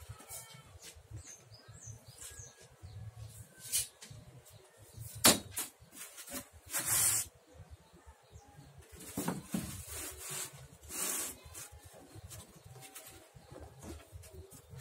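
Styrofoam sheet being handled and cut with a utility knife: scattered scraping and rubbing noises, the sharpest about five seconds in and a longer one about seven seconds in.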